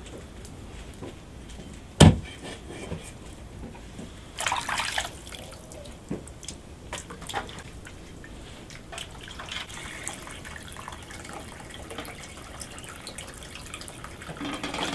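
Water splashing and dripping during kitchen work, with a single sharp knock about two seconds in and scattered small clicks.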